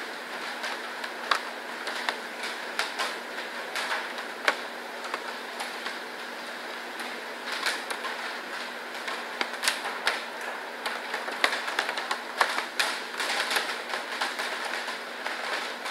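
Irregular soft clicks and smacks of a small hybrid cat eating meat from a bowl beside the keeper's hand, over a steady machine hum and hiss in the room. The clicks come thicker in the second half.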